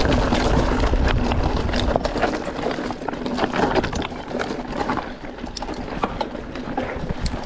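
Mountain bike ridden over rough, stony ground. Wind rumbles on the microphone for the first two seconds, then gives way to a dense run of clicks and rattles from tyres on loose rock and the bike's parts shaking.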